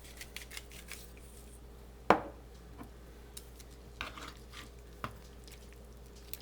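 Kitchen handling sounds while raw chicken pieces are being salted: scattered light clicks and taps, with one sharp knock about two seconds in.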